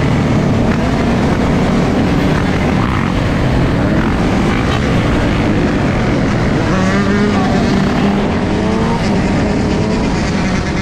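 Loud, steady engine noise, with an engine's revs rising and falling about two-thirds of the way through.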